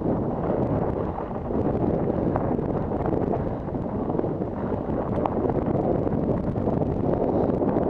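Wind buffeting the microphone of a helmet camera on a mountain-bike descent, over the rumble of a Kona Honzo singlespeed's tyres rolling on loose, rocky dirt trail, with many small clicks and rattles.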